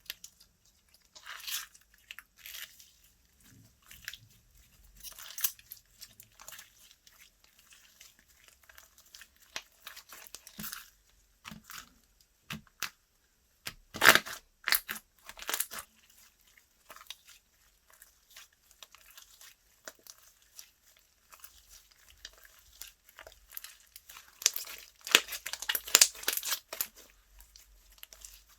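Slime being stretched, pressed and folded by hand, giving irregular crackling, tearing and popping sounds in clusters, with louder bursts about halfway through and again near the end.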